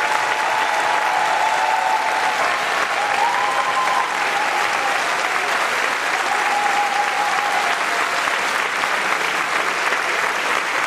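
Theatre audience applauding steadily, with a few held pitched calls rising above the clapping in the first part.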